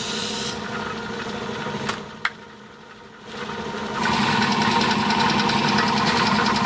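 A compressed-air hiss stops about half a second in. After a single sharp click, an air compressor starts up about four seconds in and runs steadily, a pitched hum with a fast rhythm, recharging its tank.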